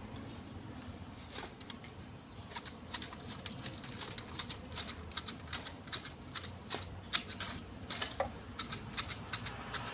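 Hand hedge shears snipping through Fukien tea shrub: a quick, irregular run of sharp clicks as the blades close, coming more often after the first few seconds.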